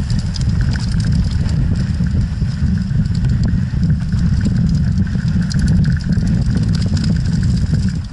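Mountain bike rolling down a dirt singletrack, heard through an action camera's microphone: a loud, steady wind rumble with scattered clicks and rattles from the tyres and bike on the trail.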